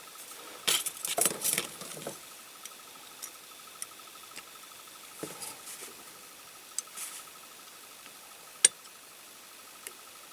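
Small clicks, taps and rustles of tiny diecast toy parts and tools being handled on a work surface while wheels are fitted: a cluster of clicks about a second in, scattered light ticks, and one sharp click near the end, over a faint steady high hum.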